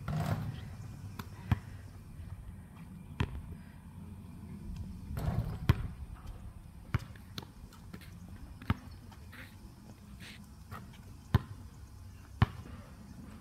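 A basketball bouncing on an outdoor hard court: single sharp thuds, unevenly spaced a second or two apart, about seven in all.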